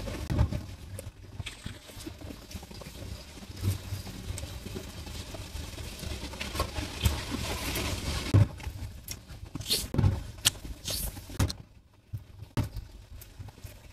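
A person eating close to the microphone: irregular chewing and mouth sounds with scattered sharp clicks, dropping to a short lull near the end.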